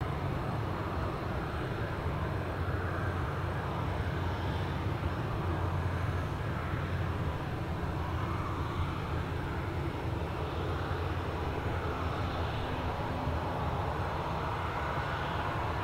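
Boeing 737-700's CFM56-7B turbofan engines running at low thrust as the jet rolls slowly along the runway. The sound is a steady rumble with a rushing hiss above it, holding level with no spool-up.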